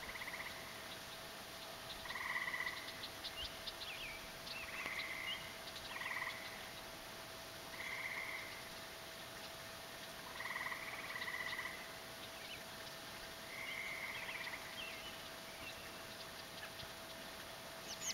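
Short, rapid trills repeated every two to three seconds, each lasting well under a second or about a second, with faint sharp ticks between them. A faint steady hum runs underneath.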